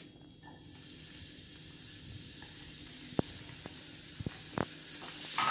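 Chopped onions sizzling in hot oil in a stainless steel pan: a steady hiss that starts about half a second in as they hit the oil, with a few sharp clicks in the second half.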